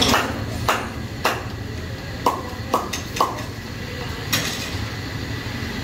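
Metal utensils knocking and clanking in about seven sharp, unevenly spaced strikes, a few of them ringing briefly.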